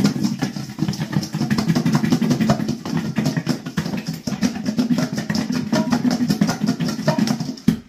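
Whole seasoned fish shaken hard inside a lidded stainless steel mixing bowl: a fast, continuous rattling and thudding of fish and seasoning against the metal. It stops abruptly just before the end.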